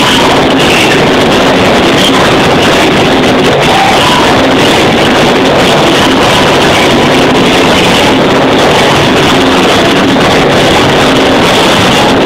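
Loud music played for a breakdance battle round, very loud and flat in level, with no break or change.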